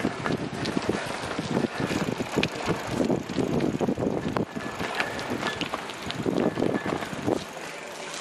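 Wind buffeting the microphone over the rumble of a bicycle's tyres rolling along a path. The rumble drops away about seven and a half seconds in.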